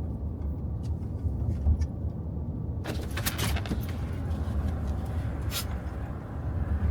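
Low rumble of a car on the move. About three seconds in, a rush of wind noise with some clicking comes in and stays, as a side window is rolled down.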